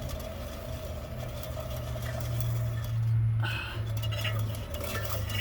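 Car wheel spinning on its hub, a steady low hum with scattered light metallic clinks and ticks, which the owner takes for a wheel hub assembly going out.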